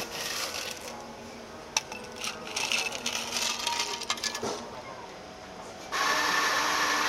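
Ice rattling and clinking as a plastic scoop digs through an ice bin and tips the cubes into a glass, with a few sharp clinks. About six seconds in, a Cafina XT6 coffee machine starts running with a steady mechanical noise.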